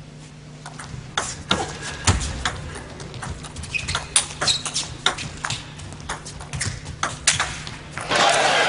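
Table tennis rally: a celluloid ball clicking irregularly off bats and table, with shoes squeaking and shuffling on the court floor. Near the end the point ends and the crowd breaks into applause.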